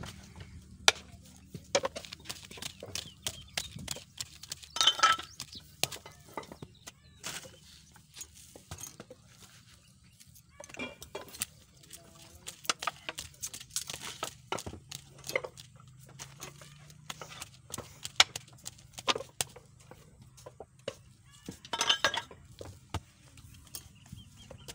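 Hand-working of wet clay: scattered sharp clicks, knocks and slaps as lumps are pulled from the heap and pressed on the board, over a faint low steady hum. Louder brief clusters come about 5 seconds in and again near 22 seconds.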